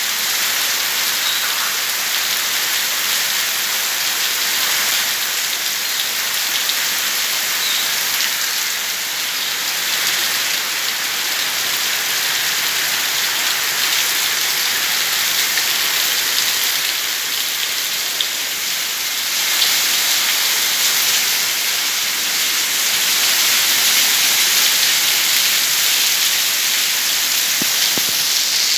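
Heavy rain falling steadily, a dense hiss of drops on roofs and paving.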